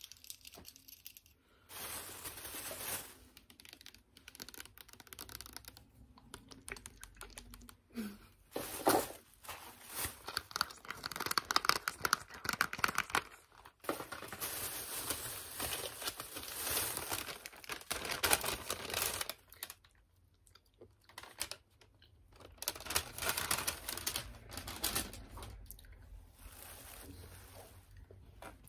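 Clear plastic packaging crinkling and tearing as it is opened and handled by hand, in irregular bursts with short pauses.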